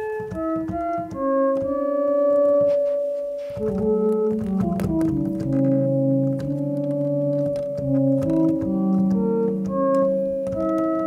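Homemade ATtiny85-based synthesizer in additive mode, its tone built from an octave and a fifth stacked above, played through reverb: a run of held notes, several sounding together, changing pitch every half second to a second or so, with small clicks as notes change.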